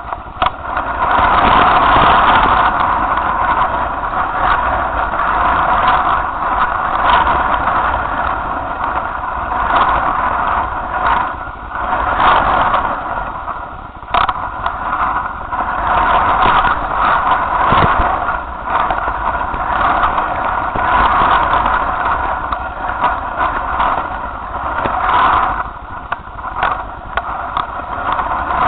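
Strong wind buffeting a kite-borne camera's microphone, with a steady mid-pitched drone and low rumble that swell and dip every second or so.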